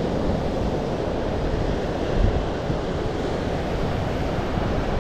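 Wind buffeting the microphone over the steady wash of ocean surf, with a stronger rush about two seconds in.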